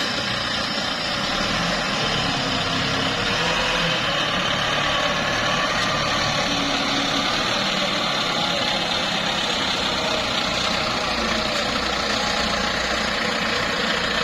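Small wheel loader's diesel engine running steadily.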